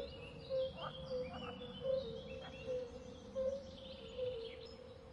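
Outdoor nature ambience: birds chirping and whistling over a steady low call that pulses about every three-quarters of a second.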